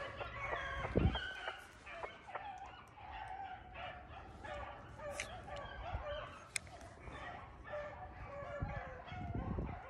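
A pack of beagles baying on a rabbit's trail, several dogs' voices overlapping without a break: the dogs are running a rabbit. A low thump about a second in.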